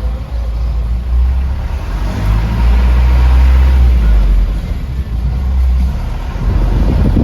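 Vehicle running on a test drive after its differential was adjusted: a steady low engine and drivetrain rumble that swells in the middle, with rough buffeting near the end and no clunk from the driveline.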